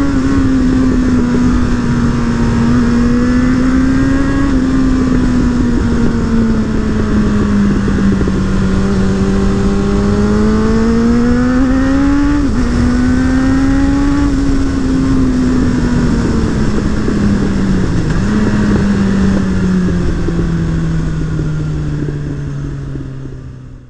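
Suzuki Bandit's inline-four engine running under way, its pitch rising and falling with the throttle, with a sudden dip about halfway and a slow fall in pitch near the end as it fades out. A steady wind rush lies under the engine.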